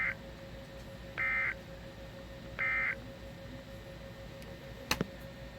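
Weather-radio EAS end-of-message data bursts: three short, harsh two-tone digital squawks about a second and a half apart, the first clipped at the start, over a faint steady hum. A single sharp click comes near the end.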